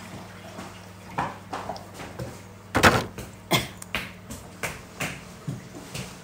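A knife cutting around the rind of a green star apple and hands working and pulling the fruit apart: a run of short sharp clicks and taps, the loudest about three seconds in, over a low steady hum.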